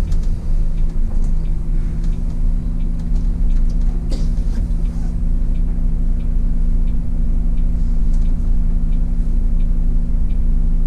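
City bus engine idling, heard from the driver's cab as a steady low drone with a constant hum. There is a brief hiss about four seconds in and a faint regular ticking.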